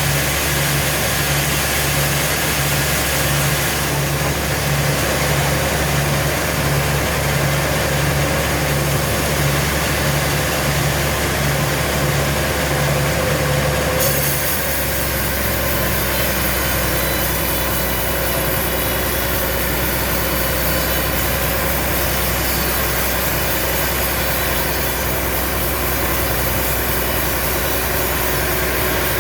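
Sawmill machinery running steadily, with an engine-like hum that throbs regularly for the first half. About halfway through the sound shifts abruptly to a smoother, steady drone.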